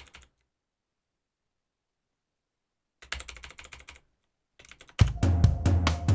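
Dead silence for about three seconds, then a quick run of soft clicks. About five seconds in, a loud electronic drum-kit beat starts with kick and snare hits over a low sustained synth drone.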